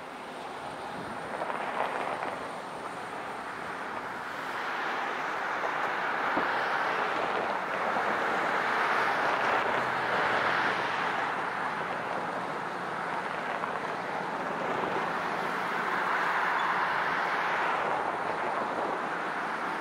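Canadian National diesel freight locomotive running near at low speed, a steady rushing sound that swells, eases slightly in the middle and swells again before fading near the end.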